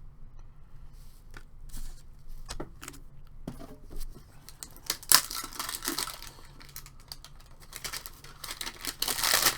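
Hands handling hockey card tins, packs and cards: scattered clicks and taps, with two louder spells of wrapper rustling and tearing, about five seconds in and again near the end.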